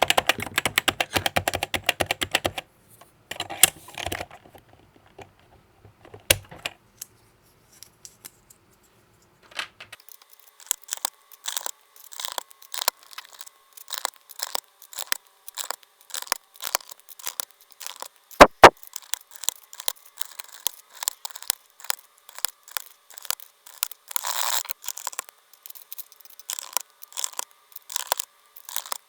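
Plastic Topre keycaps clicking and snapping as they are pulled off and pressed onto a Happy Hacking Keyboard's switch stems. A quick run of clatter at the start, a short lull, then irregular clicks with a louder double snap about halfway through.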